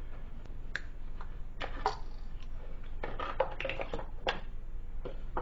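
Short clicks and snaps of hand tools at work: wire cutters cutting the motor's two-wire cord, with tools and small parts handled on a wooden bench. The clicks come scattered, thickest about three to four seconds in.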